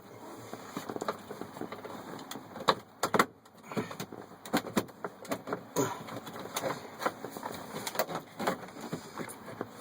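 Plastic heater-core housing being worked up into place under a truck's dash: irregular clicks, knocks and scrapes of plastic against the bracket and wiring, the housing catching on an electrical plug that blocks it.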